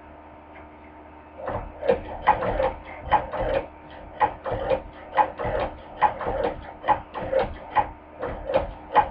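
Hand-crank cobbler sewing machine stitching as its handle is turned, the needle mechanism clacking in a steady rhythm of about two to three strokes a second, starting about a second and a half in.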